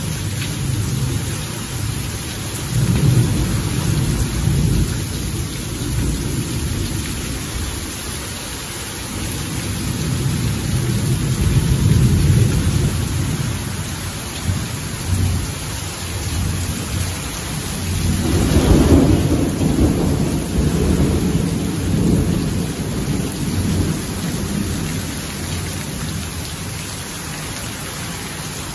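Heavy rain pouring steadily onto a concrete terrace, with rumbles of thunder rising and falling beneath it. The loudest roll comes about two-thirds of the way through.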